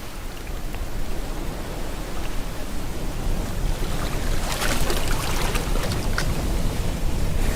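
Ocean waves rolling in with a steady low rumble. About four and a half seconds in, a wave breaks and its foam hisses and crackles as it washes up.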